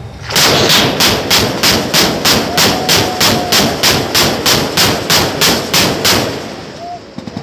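Parchim-class corvette's deck gun firing a sustained burst of about twenty rounds at roughly three a second, starting suddenly and stopping about six seconds in.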